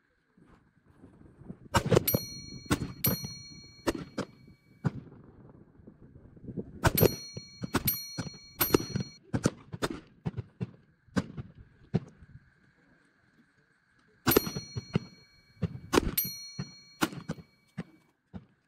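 Rifle shots in short, irregular strings: sharp cracks, the loudest each trailed by a brief metallic ring, with fainter shots from other firing lanes in between.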